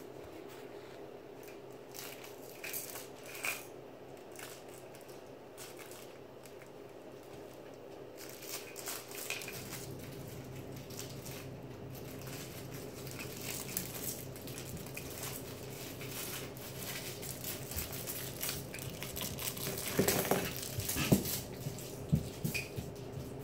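Puppies moving about on a quilt over a hardwood floor: scattered small clicks and rustles, with a few louder knocks about three-quarters of the way through, over a steady low hum.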